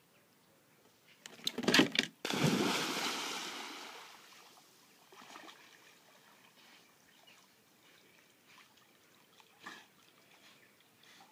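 A German shepherd jumping into a pond: a few sharp knocks, then a loud splash about two seconds in that fades away over a couple of seconds. After it come faint, scattered splashes and water sounds as the dog swims.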